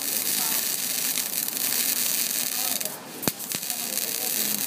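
Electric arc welding on steel: a steady crackling hiss from the arc, breaking off briefly about three seconds in and coming back with a sharp click.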